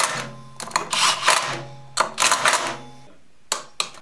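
Cordless drill/driver spinning down the rear sprocket bolts on a motorcycle wheel hub in about four short bursts of motor hum and rattle. Two sharp clicks of tool metal follow near the end.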